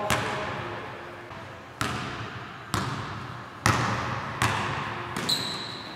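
Basketball dribbled on a hardwood gym floor, about one bounce a second, each bounce ringing out in the big gym's echo. Near the end a sneaker gives a short high squeak on the floor.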